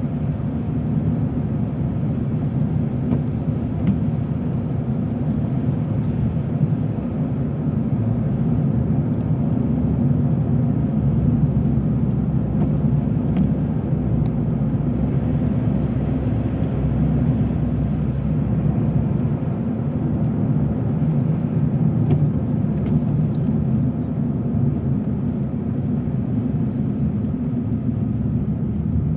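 Steady drone of a car's road and engine noise heard from inside the cabin while driving.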